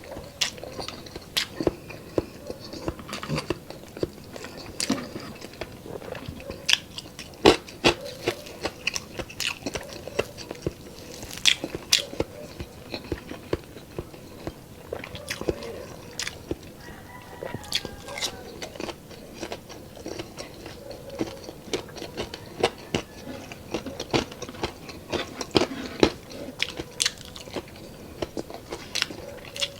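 A person chewing and biting crispy fried chicharon bulaklak, with irregular sharp crunches every second or so.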